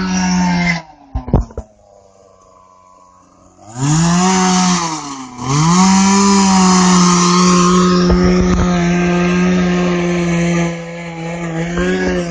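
Two-stroke chainsaw running at full throttle. It drops away to a low idle about a second in, is revved back up near four seconds with a brief dip, then is held steady at high revs and drops somewhat near the end.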